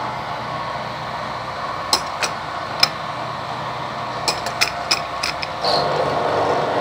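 Carbide milling cutter on a milling machine cutting into a case-hardened steel pin: steady spindle and cutting noise with sharp clicks as the cutter chips at the hard case. About five and a half seconds in, the cutting turns louder and steadier as the cutter breaks through the case into the soft steel beneath.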